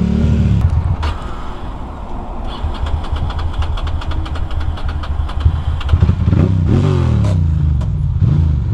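2006 Ducati Monster 620's air-cooled L-twin engine running at low speed in traffic, its revs rising at the start and again about six to seven seconds in.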